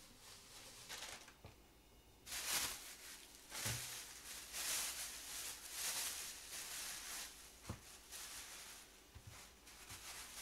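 Thin plastic produce bags crinkling and rustling as groceries are unpacked, with a few soft thumps of produce being set down on the counter.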